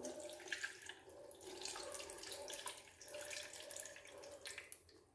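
Water being poured from a plastic measuring jug into a blender jar packed with leaves: a faint, steady trickle that stops near the end.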